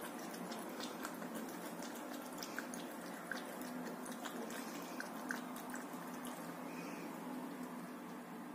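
A cat lapping water from a drinking glass: soft, irregular wet ticks over a steady hiss.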